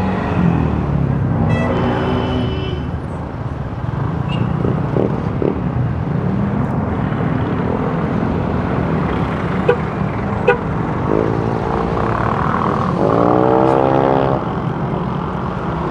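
Street traffic heard from a moving motor scooter: its engine running under a steady rumble of road and wind noise. A vehicle horn toots about two seconds in. More pitched vehicle tones follow near the end, and two sharp clicks come about ten seconds in.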